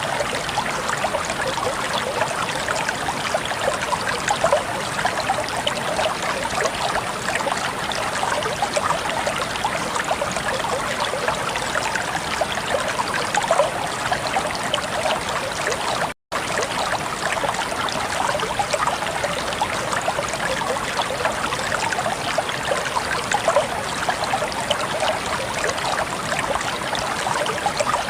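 Small waterfall splashing and rushing steadily, the sound of falling water. It cuts out for an instant about two-thirds of the way through.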